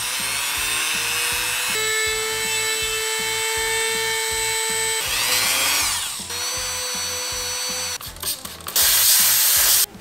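Rotary tool with a wire wheel running at high speed with a steady whine, scrubbing surface rust out of the steel collar in the motorcycle frame's brake-pedal pivot hole. The pitch drops and climbs again about halfway through, and near the end there is a short, louder, harsher rasp.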